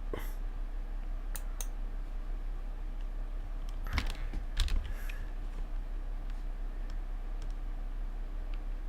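Computer keyboard keys being pressed: a few scattered clicks, with a quick cluster of keystrokes about four to five seconds in, over a steady low electrical hum.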